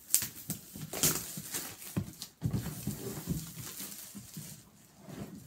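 Cellophane shrink-wrap crinkling and tearing as it is peeled off a cardboard game box, with a few sharper rips near the start, about a second in and just after two seconds.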